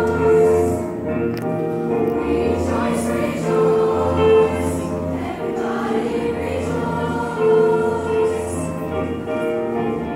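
Mixed seventh-grade show choir singing in harmony over instrumental backing, holding long chords that change every second or so.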